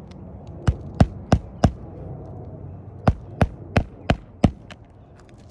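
Hammer blows on an asphalt shingle roof during a three-tab shingle repair: a run of four sharp strikes, a pause of about a second and a half, then five more, about three a second.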